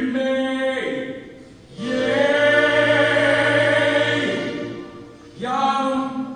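A man singing a slow melody into a microphone, amplified through the hall's sound system, with one long held note in the middle.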